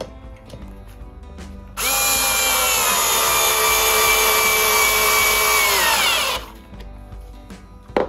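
Cordless drill-driver driving a screw into plywood, running steadily for about four and a half seconds; its whine drops in pitch near the end as the screw seats, then stops.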